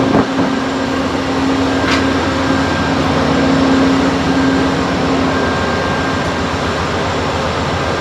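Running noise inside an Amtrak Superliner sleeping car on the move: a steady rumble and rush with a constant hum underneath. A single sharp click comes about two seconds in.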